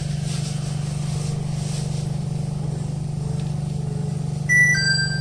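Steady low hum of a Nippori-Toneri Liner rubber-tyred automated guideway train, heard from inside the front car. Near the end a two-note onboard chime sounds, the higher note first and then a lower one.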